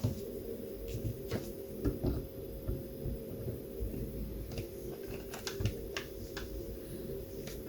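Irregular light clicks and taps of small plastic parts being handled, as a wheel is fitted onto an RC car's hub, over a steady low hum.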